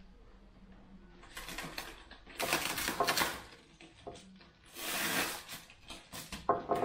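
Plastic packing wrap and tape crinkling and tearing as they are pulled off a bicycle frame, in three noisy bursts, the loudest about two and a half to three seconds in.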